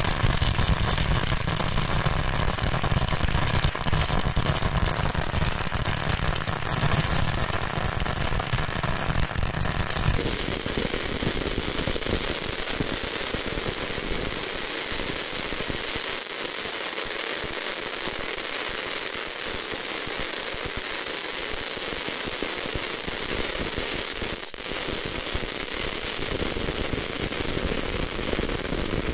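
A 16,000-cracker Thunderbomb firecracker roll going off in a continuous, rapid crackle of countless small bangs. About ten seconds in, the crackle turns thinner, with less low rumble.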